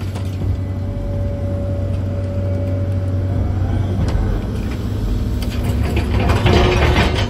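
Heavy-equipment diesel engine running steadily, with a thin whine over it for the first three seconds. It grows louder with rattling and clatter about six seconds in.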